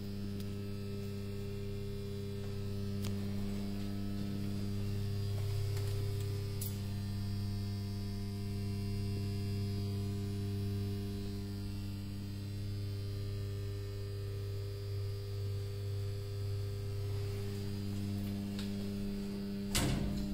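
Steady electrical mains hum from the energised contactors, relays and transformer of a freight elevator's relay control cabinet: a low drone with a stack of steady overtones, part of it fading for a few seconds and returning. A sharp click near the end.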